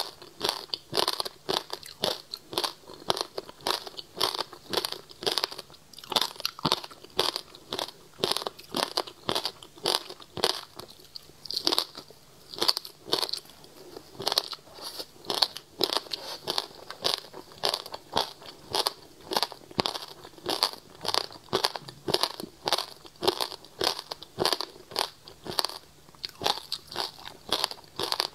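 Close-miked chewing of frozen passion fruit pulp with its seeds: a steady run of crisp, icy crunches, about two a second.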